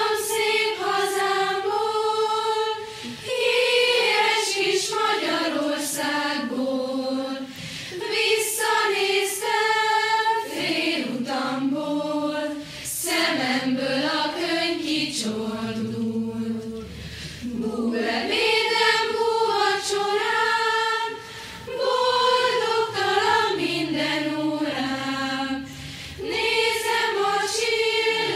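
A choir singing a song in phrases a few seconds long, with brief breaths between them.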